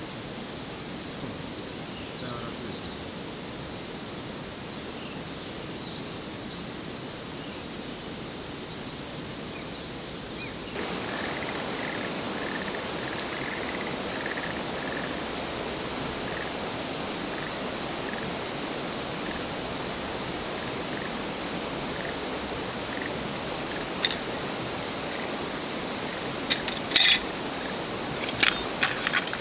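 Steady outdoor background hiss with faint chirps. About ten seconds in, the hiss steps up and a short call repeats steadily for some seconds. Near the end come a few sharp clinks as tarp poles are handled.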